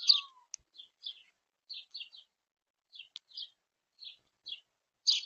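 Small birds chirping: about a dozen short, high chirps in quick, irregular succession, loudest at the start and again near the end.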